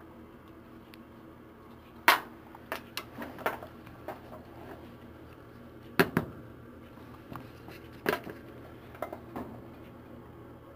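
Handling noise of small hardware: sharp clicks and knocks from alligator clips on a small lithium battery and a handheld media player being handled and its buttons pressed. A few clicks come about two seconds in, a sharp double knock about six seconds in, and a few lighter clicks near the end.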